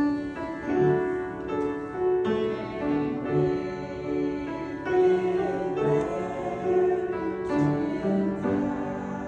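Piano playing a slow hymn, sustained chords changing about once a second.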